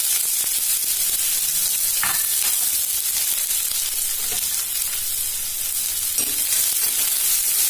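Sliced onions sizzling steadily in hot oil with panch phoron in a kadai, freshly added to the pan.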